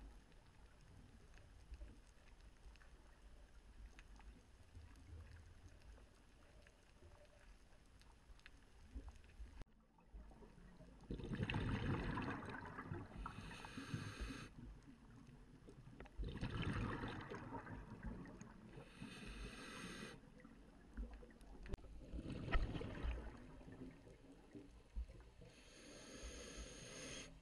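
Scuba diver breathing through a regulator underwater: from about ten seconds in, three breaths about five and a half seconds apart, each a rush of exhaled bubbles followed by the hiss of the regulator on the next inhalation. Before that only a faint underwater hiss with light crackling.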